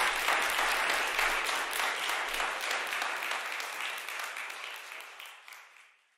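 Audience applause, many hands clapping, fading out over the last two seconds.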